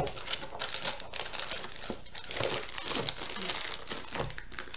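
Plastic packaging crinkling and rustling continuously as it is handled, with a few sharp crackles.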